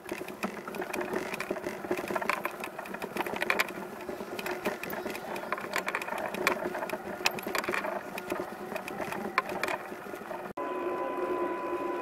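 Bicycle rattling and clicking as it is ridden, a fast, uneven run of small mechanical ticks over a steady hum. Near the end it cuts off abruptly and a steady humming tone takes over.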